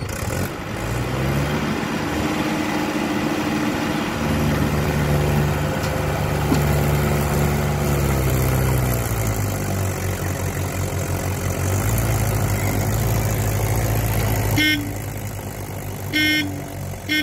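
Tractor and backhoe diesel engines revving hard under load as the Mahindra 475 strains to pull its loaded trolley out of the mud, pitch rising, holding and falling back, then rising again. Near the end the engines ease off and a horn gives two short toots.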